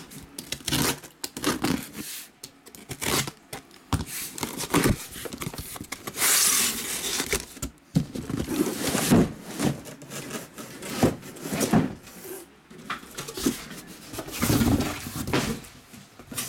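A taped cardboard shipping case being unpacked: packing tape tearing, cardboard scraping and plastic shrink-wrap crinkling, in irregular rustles, scrapes and light knocks. A longer tearing sound comes about six seconds in.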